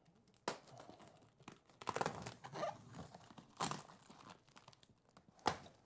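Clear packing tape being peeled and torn off the seam of a cardboard shipping box, with cardboard rustling, in several short bursts; the sharpest comes near the end.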